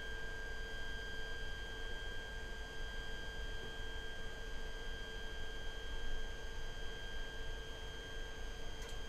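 Creality CR-10S's dual Z-axis stepper motors whining at a steady high pitch while the lead screws drive the gantry down during auto-homing. Near the end there is a faint click and the whine stops.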